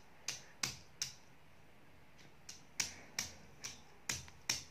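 A small child's hand slapping a glossy wall poster: a string of light, sharp slaps, irregularly spaced, with a pause of about a second and a half in the middle.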